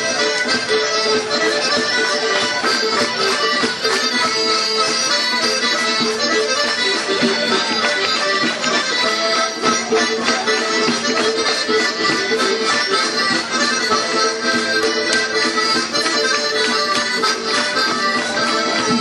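Traditional Circassian dance music played on accordion, with sharp percussive clicks keeping a fast, steady beat.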